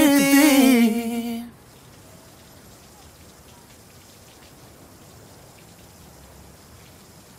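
The last held note of a male singer's pop ballad, sliding slightly down over the band, fades out about a second and a half in. It is followed by a faint steady hiss with light scattered crackle.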